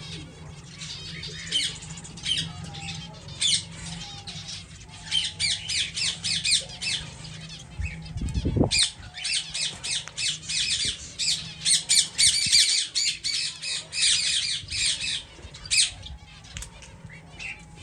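A flock of finches in an aviary calling: a dense stream of short, high, nasal calls, thickest from about five seconds in, over a steady low hum. There is one low thump about eight and a half seconds in.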